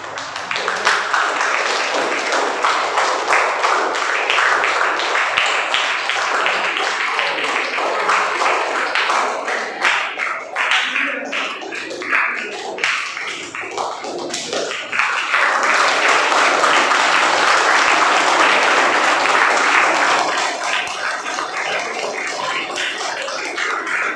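A roomful of schoolchildren applauding, a dense patter of many hands clapping that swells loudest about two-thirds of the way through.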